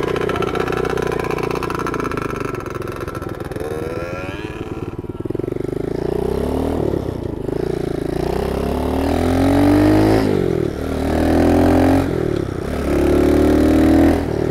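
Small 50cc monkey bike's single-cylinder engine accelerating up through the gears. The engine note climbs, drops suddenly at each upshift, and climbs again, about three times in the second half.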